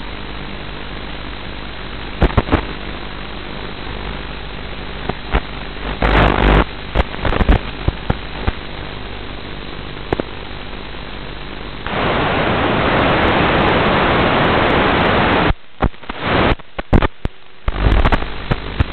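Steady hiss and static from a quadcopter's analog FPV video link audio, with scattered crackles. Past the middle the hiss turns louder for about three and a half seconds, then breaks up into choppy dropouts and crackles.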